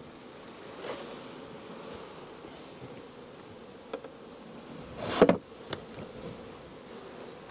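Honeybee swarm clustered on the underside of a lifted wooden hive cover, buzzing with a steady hum. About five seconds in, a brief louder scrape as the cover is handled, with a few small clicks around it.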